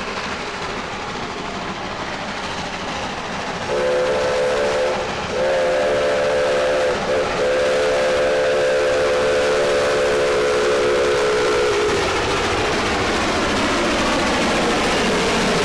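Shay geared steam locomotive working hard, with a steady running noise. About four seconds in its steam whistle sounds several tones at once in one long call, broken by two brief gaps, and stops about twelve seconds in.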